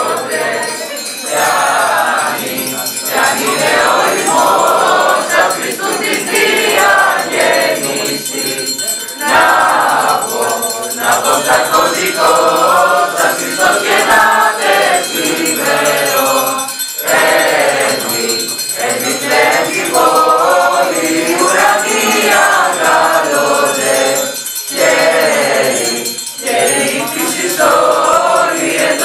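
A choir of teenage students singing a traditional Greek Christmas carol (kalanta) together, with short breaks between phrases.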